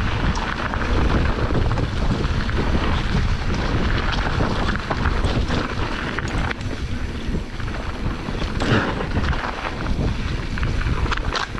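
Wind buffeting the microphone of a mountain bike rider's camera on a fast trail descent, over a steady rumble of tyres on dirt, with short clatters of the bike rattling over bumps.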